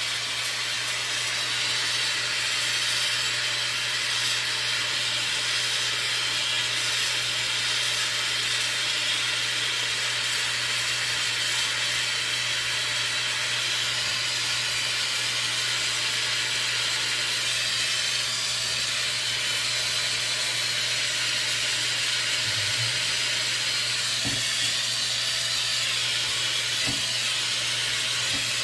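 Brazing torch flame hissing steadily while a refrigerator capillary tube is brazed, over a low steady hum. A few faint knocks near the end.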